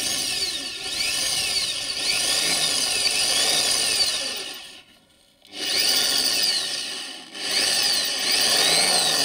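Electric hand drill boring a small pilot hole into the steel end of a car's wiper spindle. The motor whine and the bit cutting metal run in three spells, with a stop about halfway through and a brief pause soon after, and the pitch rises and falls as the speed varies.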